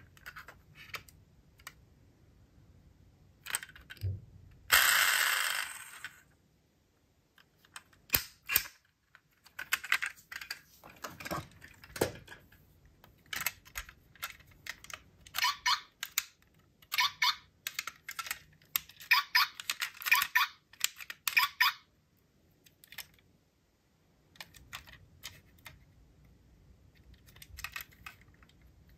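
Diecast toy cars and their packaging being handled, giving runs of small sharp clicks and taps that come in clusters. About five seconds in there is one louder scrape lasting about a second.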